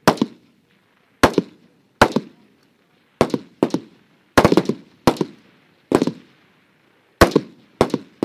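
Rifle shots fired at an irregular pace from the prone firing line, about a dozen in eight seconds, some in quick pairs, each with a short echoing tail.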